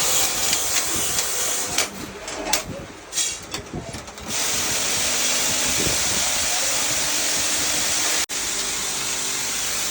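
Workshop machinery: irregular clattering and clicking for about four seconds, then a steady loud hiss, briefly cut twice near the end.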